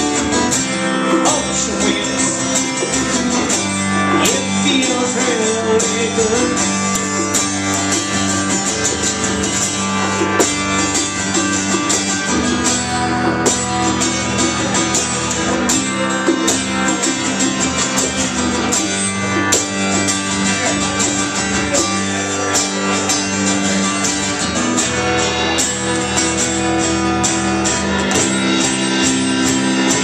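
A small live acoustic band plays: strummed acoustic guitar over upright bass, with a steady beat from hand drums and a cymbal.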